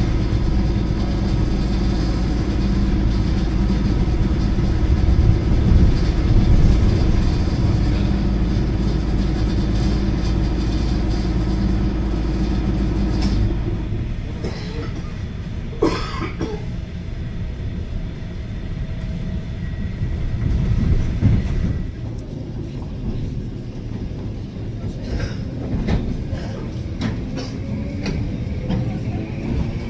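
Old suburban electric train running, heard from inside the carriage: steady rumble with a constant motor hum. About 13 seconds in the low hum drops away, a clunk sounds a couple of seconds later, and near the end a rising whine begins.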